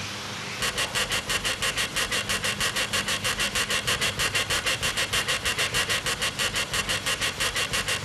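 Rapid, even run of short high squeaks, about seven a second, starting about half a second in over a faint low hum.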